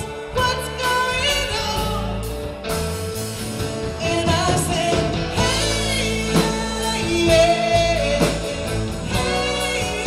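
A band playing a rock song, with a lead singer over guitar and a steady drum beat.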